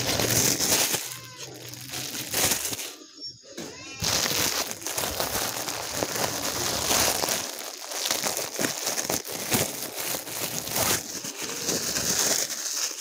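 Clear plastic packaging bag crinkling and rustling as it is handled, pulled off a folded elastic belt and crumpled up in the hand, with a short lull about three seconds in.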